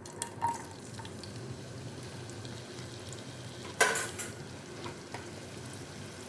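Cooking oil sizzling steadily in a pan on the stove, with a few light utensil knocks near the start and a louder clatter against the pan about four seconds in.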